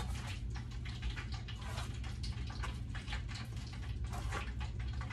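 Hot frying grease sizzling and crackling steadily, a dense run of small pops over a low steady hum.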